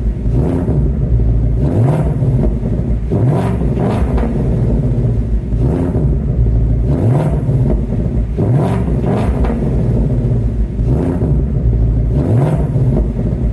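Ford Mustang engine revved in short blips over and over, each one rising and then falling in pitch, about once a second, over a steady low rumble.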